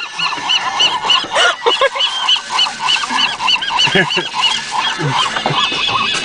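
A flock of seagulls calling over one another: many short, arching squawks overlapping at once.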